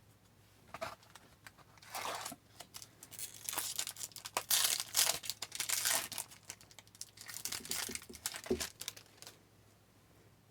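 Trading cards being pulled apart and handled: irregular crinkling and tearing rustles of cards and thin plastic film, densest midway and stopping about nine seconds in.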